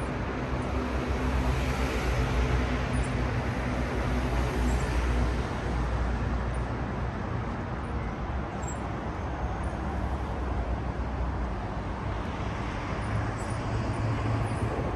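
City street traffic: steady road noise with the low hum of a vehicle engine running close by, fading somewhat in the middle and coming up again near the end.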